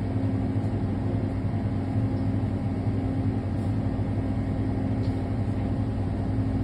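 Steady low machine hum of a convenience store's background equipment, with a few faint clicks.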